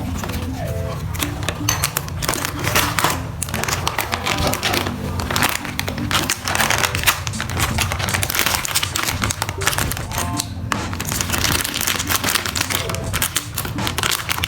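Background music with a steady bass line, over the rustle and crinkle of plastic packaging being handled and opened.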